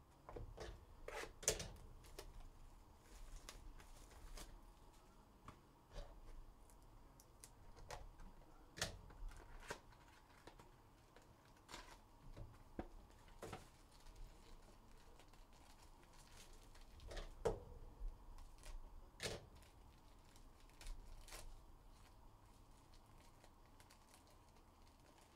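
Faint cellophane wrapper and foil card-pack packaging being torn open and crinkled, with scattered sharp crackles and light taps of cardboard on the table. The sharpest crackles come about a second and a half in and again around seventeen to nineteen seconds in.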